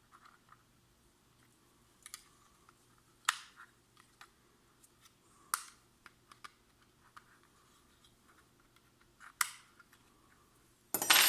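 Plastic catches of a steering-wheel clock spring being unclicked by hand as its internal ring is worked loose: scattered light clicks and snaps, and a louder snap and clatter near the end.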